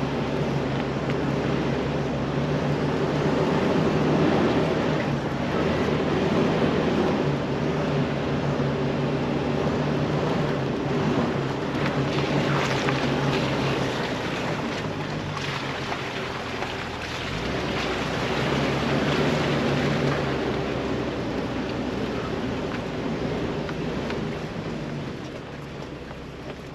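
Jeep Wrangler TJ engine running steadily at low speed as it crawls down a rocky four-wheel-drive trail. Tyres crunch over rock now and then, most clearly about halfway through.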